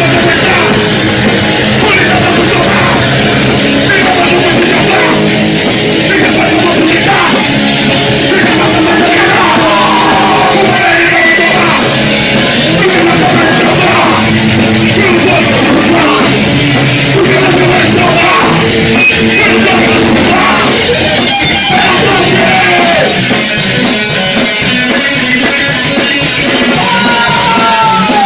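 Punk rock band playing live at full volume: distorted guitars and drums with shouted vocals.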